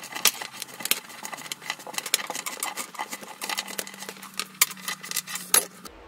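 Bicycle chain clicking and rattling as it is rubbed clean through a rag, a dense run of irregular small metallic clicks that stops abruptly just before the end.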